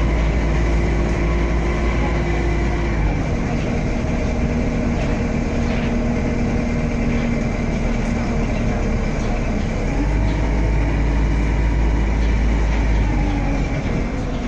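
DAF SB120 Wright Cadet single-deck bus heard from inside the saloon while under way: steady engine and drivetrain hum with road rumble. The engine note drops about three seconds in and rises again about ten seconds in as the bus changes speed.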